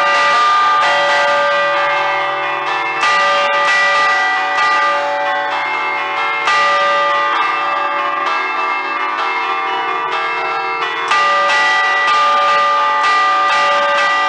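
A ring of five Ambrosian church bells in D, cast by Giorgio Pruneri in 1875, chimed by hand with cords pulling the clappers (allegrezze a cordette). The strikes come fast and overlap in a festive pattern, the bells' tones ringing on continuously, with heavier strokes about three, six and a half and eleven seconds in. It is heard close up beside the bells.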